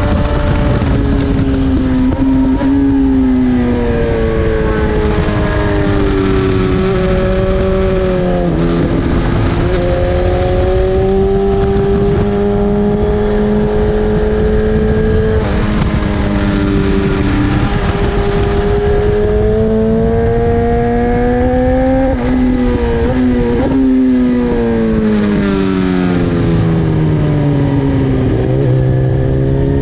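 BMW S1000RR inline-four sport-bike engine under hard use on track, heard onboard: its note climbs through the revs with sudden steps at gear changes, then falls away several times under braking and downshifts before climbing again. Steady wind rush runs under it.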